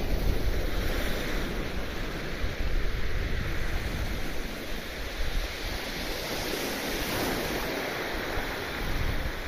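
Surf breaking and washing up a shingle beach, the hiss swelling with each wave, twice over. Wind rumbles on the microphone, most strongly at the start.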